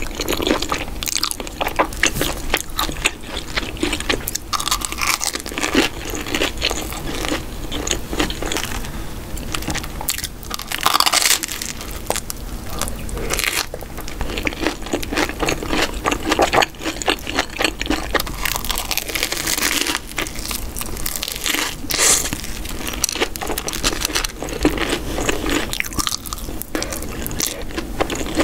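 Close-miked eating: a person chewing and biting cheesy corn and stuffed bread, a dense run of small clicking mouth sounds with a few louder bites about 11 and 20 seconds in.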